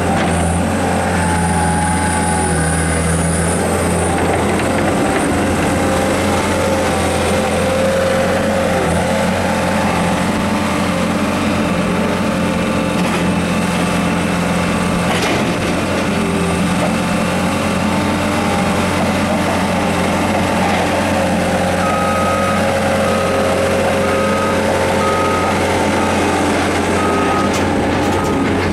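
Caterpillar 262 skid-steer loader's diesel engine running steadily under load while the machine drives and works its bucket. Over the last several seconds a backup alarm beeps about once a second.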